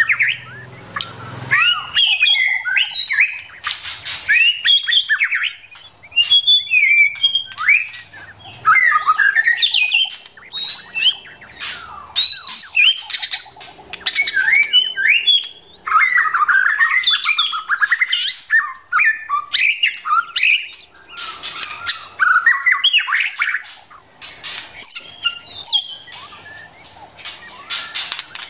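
Female white-rumped shama calling: quick, varied whistled notes mixed with harsh, scratchy chatters, in phrases of a second or two with short pauses between. This is the kind of female call played to provoke male shamas into singing.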